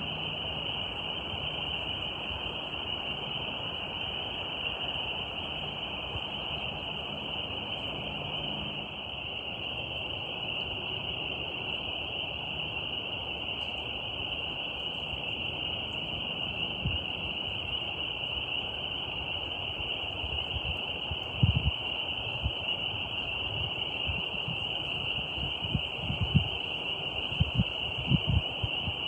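Steady, high, shimmering chorus of insects, with a faint rushing hiss beneath it. Several dull low thumps come near the end.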